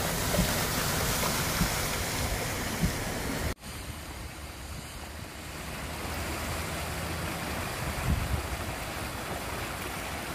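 Muddy floodwater rushing, first across a flooded street as a car drives through it, splashing, with a few low thumps. After an abrupt cut about three and a half seconds in, a flash-flood stream runs over rocks.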